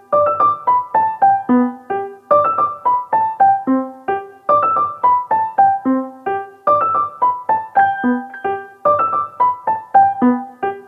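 Background music: a light piano tune of short falling note runs, the phrase repeating about every second and a half.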